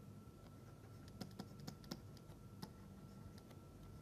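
Faint, irregular clicks and taps, a few per second, over a faint steady hum and a thin whine.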